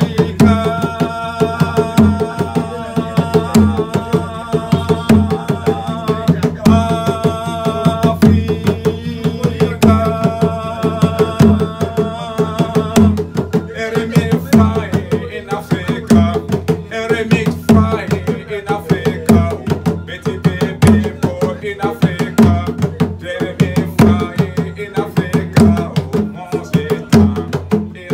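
Two kpanlogo hand drums played with bare hands in a steady, driving rhythm. A high, wavering melodic line rides over the drumming for about the first dozen seconds, then breaks into shorter phrases.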